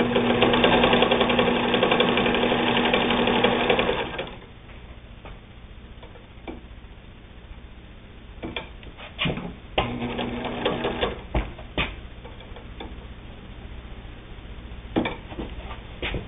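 Singer 99 sewing machine running fast for about four seconds, its steady motor hum under a rapid clatter of needle strokes, then stopping. About ten seconds in it runs again briefly, with a few separate clicks and knocks of the machine in between.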